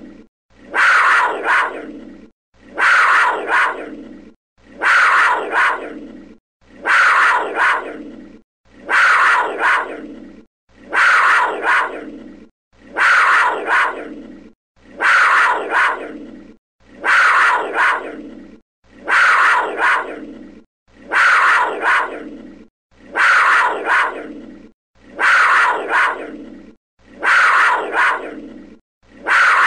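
A panther's growl, a rough call of about a second and a half that starts abruptly and fades, repeated every two seconds with short silent gaps: the same recording looped over and over.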